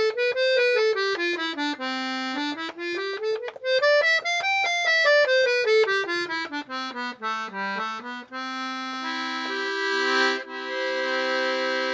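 Hohner Arietta accordion's treble side played on a single reed set: quick stepwise runs up and down, then held notes that build into a chord in the last few seconds. The reeds are freshly cleaned and revalved but not yet tuned, and it sounds really nice.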